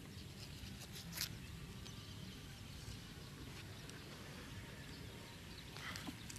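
Quiet outdoor ambience with a few short faint clicks or rustles, the clearest about a second in and another near the end.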